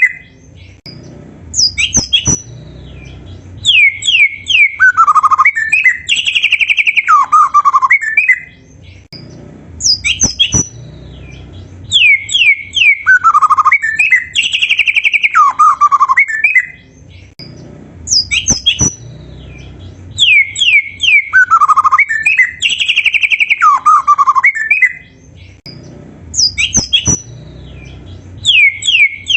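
White-rumped shama (murai batu) singing in the Malay-style song pattern: loud whistled phrases and quick rising and falling trills with short pauses between bursts. The same run of phrases comes round again about every eight and a half seconds.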